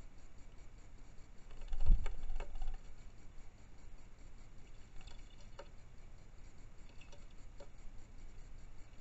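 Red-whiskered bulbul landing on a car's plastic wing-mirror housing with a dull thump about two seconds in, then a few scattered light taps as it moves about on the mirror.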